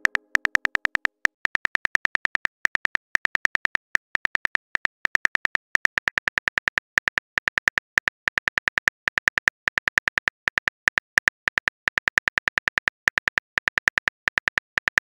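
Phone keyboard typing sounds: a rapid train of short, identical clicks, many a second in quick runs with brief gaps, as a text message is typed out.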